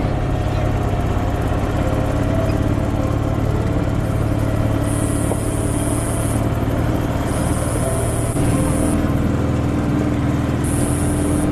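A vehicle running at low speed with a steady engine hum. From about five seconds in, a high, thin buzz comes and goes in stretches of a second or two.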